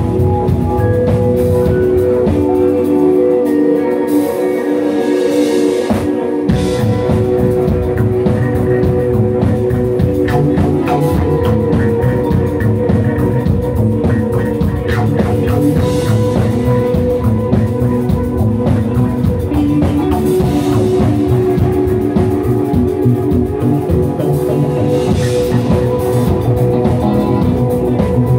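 Live rock band playing: sustained keyboard chords over electric guitars, with bass and drum kit. The bass and kick drum drop out for a few seconds and come back in about six seconds in.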